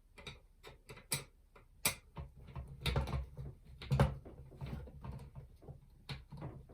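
Irregular small clicks and knocks of hard plastic model-kit parts being handled and fitted together, with a few louder knocks around two, three and four seconds in.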